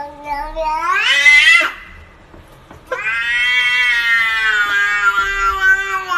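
A cat yowling in two long, drawn-out calls. The first rises steeply in pitch and breaks off after about a second and a half. The second starts about three seconds in and is held for about three seconds, its pitch slowly falling.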